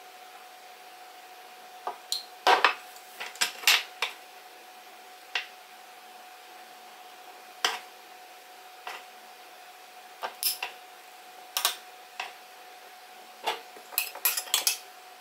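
Spoon clinking and tapping against a glass and a jar: scattered sharp clinks, a cluster of them about two seconds in, single ones after, and another quick run near the end, over a faint steady hum.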